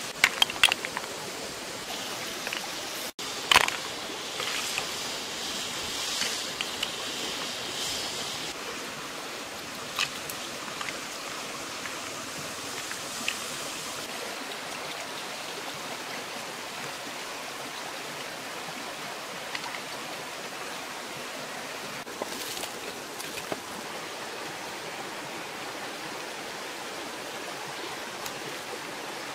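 Steady rushing of a shallow river over stones, with a few sharp clicks and knocks, the loudest about three and a half seconds in, and scattered ticks later.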